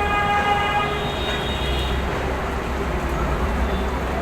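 A vehicle horn sounds a long blast that ends about a second in, then a shorter, higher horn blast follows, over a steady low rumble of street traffic.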